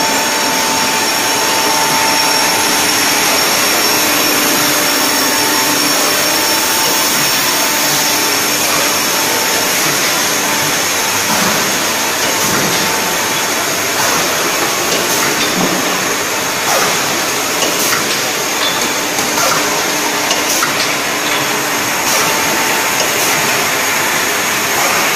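Pickle filling machine line running: a loud, steady mechanical whir with a constant high whine, and scattered light clicks through the second half.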